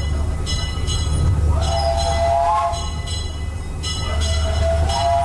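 Disneyland Railroad steam train running along the track: a steady low rumble from the moving cars, with a high, slightly rising tone sounding twice, briefly about two seconds in and again from about four seconds in.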